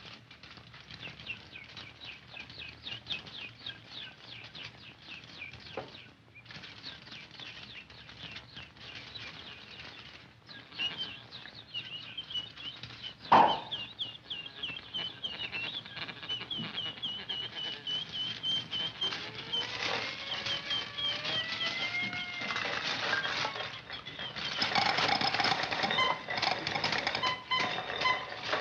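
Old cartoon-style soundtrack effects for a mechanical bird: rapid clicking and chattering with high chirping squeaks, and a single sharp crack about 13 seconds in. Sliding squeaky whistles follow about 20 seconds in, and a louder, denser clatter comes near the end.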